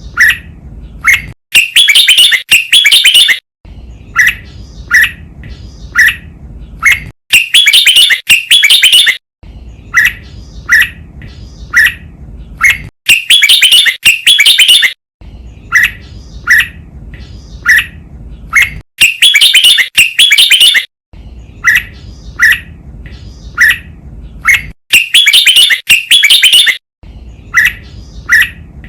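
Red-whiskered bulbul singing its loud double song phrase, repeated about every six seconds, with short single chirps between the phrases. It is a clear song recording meant for training caged bulbuls to sing.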